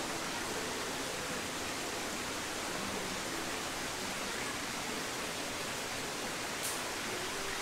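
Steady, even rushing noise with no rhythm or pitch, and one brief high tick near the end.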